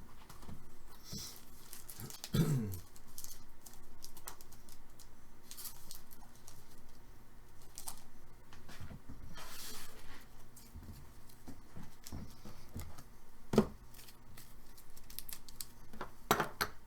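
Card packaging being torn open and handled: intermittent tearing and crinkling of wrapper and box, with one sharp knock about three-quarters of the way through.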